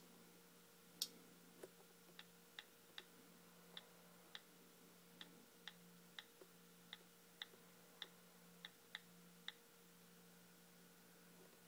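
The iOS on-screen keyboard plays its key-click sound: about a dozen and a half short ticks at a typing pace, one for each key tapped as a word is typed. A sharper single tap comes about a second in. A faint steady low hum sits underneath.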